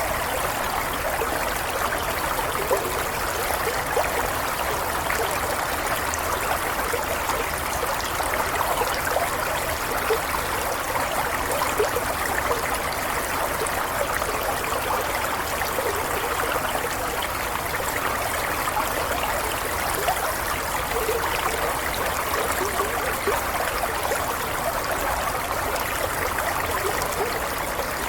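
Running water, steady and unbroken, with many small splashes and gurgles in it, like a small stream or trickle.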